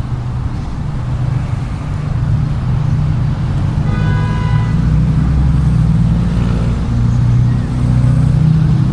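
Motor vehicle traffic running close by, a low rumble that grows louder, with a short horn-like tone about four seconds in.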